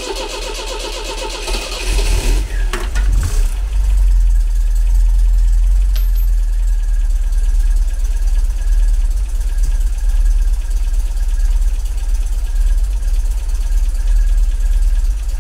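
MGB's 1.8-litre B-series four-cylinder engine cranked by the starter for about two seconds, then catching and settling into a steady run. It is started from cold after winter storage with no choke, and it sounds pretty good.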